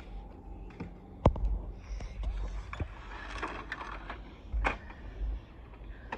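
Plastic toy fire-truck playset knocking and clicking as it is handled and lifted, with scattered sharp knocks, the loudest about a second in, over low handling rumble.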